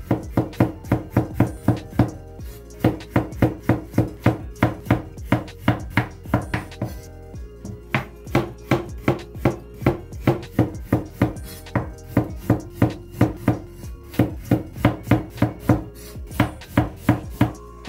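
A kitchen knife slicing burdock root on a bamboo cutting board, in quick even strokes of about four a second. Each stroke knocks the blade onto the board. The slicing stops briefly twice.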